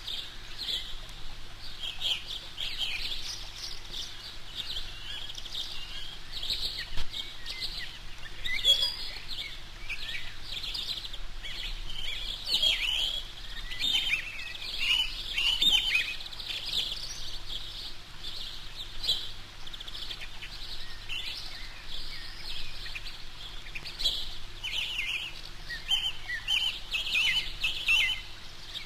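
Eurasian coot chicks peeping: a near-continuous stream of short, thin, high-pitched calls, several chicks overlapping.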